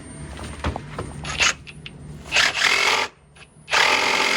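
Reciprocating saw (Sawzall) run in stop-start bursts as it is tried on the cut: a short burst, then a longer one, then a sustained run near the end.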